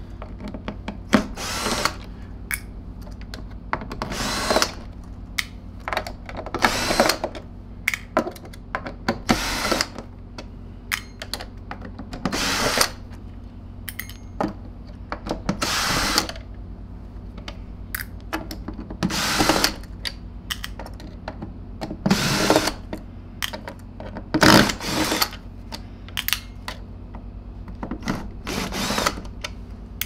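Hitachi drill driver spinning screws out of the plastic bottom housing of a Zero G F3D vacuum, in short whirring bursts every two to three seconds.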